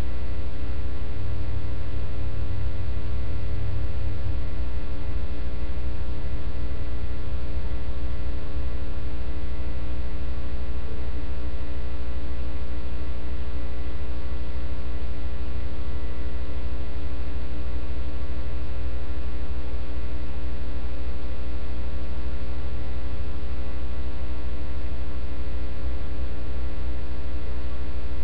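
Loud, steady electrical mains hum picked up on a surveillance DVR's audio feed: a low buzz with a stack of evenly spaced overtones and nothing else over it.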